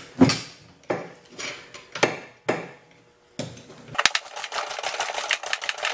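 Several separate metallic clunks from a socket wrench being worked on a loosened mower blade bolt, then about four seconds in a ratchet clicking rapidly and evenly for about two seconds as the bolt is spun out.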